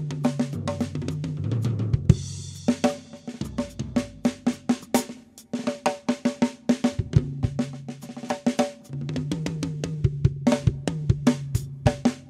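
PDP acoustic drum kit played fast: rapid snare and tom strokes, bass drum kicks and cymbal hits. There is a short cymbal wash about two seconds in, and a deep held tone sounds under much of the playing.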